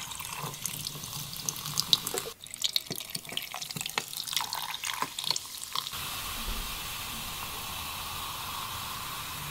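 A dark fizzy soft drink poured into a glass mason-jar mug, then fizzing with many tiny crackling bubble pops; about six seconds in the pops give way to a steady hiss.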